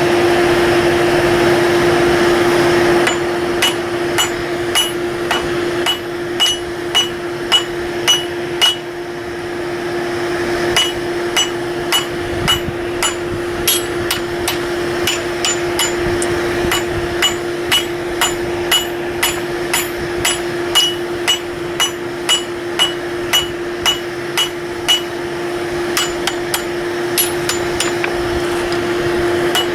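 Hand hammer striking hot steel on an anvil while forging, a long run of ringing blows just under two a second, with a short pause about nine seconds in. A steady blower hum runs underneath, louder for the first three seconds.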